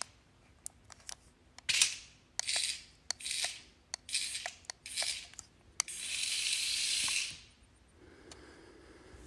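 A cat hissing repeatedly at a toy snake: several short hisses, then one longer hiss about six seconds in, with a few sharp clicks in between.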